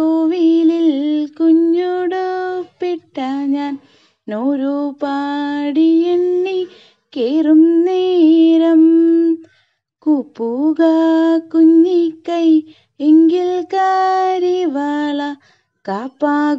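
A woman singing a Malayalam poem unaccompanied in the Manjari metre, in long held notes that slide up into each phrase. The phrases are broken by short pauses, with a longer break about ten seconds in.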